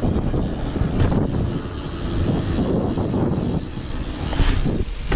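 Wind buffeting an action camera's microphone as a mountain bike rolls quickly along a paved road, mixed with tyre rumble: a steady, dense, low rumble.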